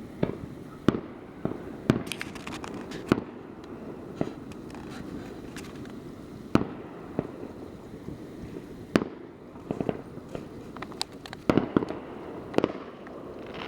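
Fireworks going off: scattered, irregular bangs and pops, with quick clusters of pops about ten and twelve seconds in, over steady low background noise.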